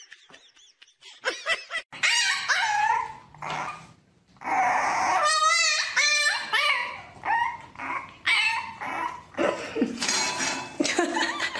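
Dogs whining and yipping: a few short calls from a husky, then, after a brief pause about four seconds in, a puppy crying with high wavering whines and short yips.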